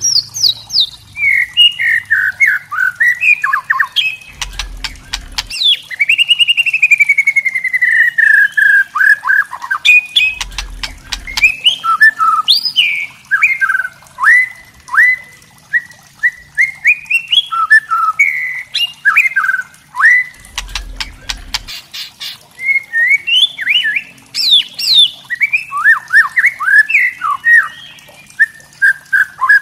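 White-rumped shama (murai batu) singing a fast run of varied whistled notes and quick sweeps, mixed with dry crackling 'kretekan' rattle notes of a spotted juvenile (trotol) shama. A long falling whistle comes about six seconds in.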